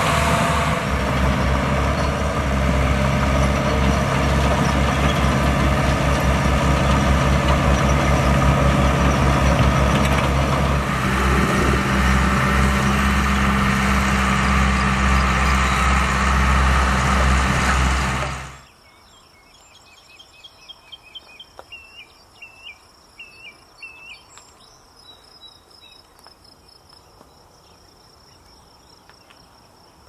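Diesel engines of a mini excavator and a small crawler bulldozer running while they dig and push earth, a loud steady hum with a rhythmic low throb. About eighteen seconds in the machinery cuts off suddenly, leaving insects buzzing with a steady high tone and a few short chirps.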